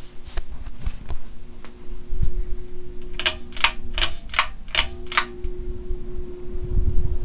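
Hunter Baseball Fan ceiling fan motor humming steadily. About three seconds in comes a quick run of about seven sharp, rattling clicks, and during them the hum cuts out briefly and then resumes.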